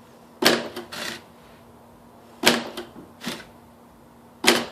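Typewriter key driven by a solenoid striking by itself, a loud clack followed by one or two lighter clacks, repeating about every two seconds. A faint steady hum runs underneath.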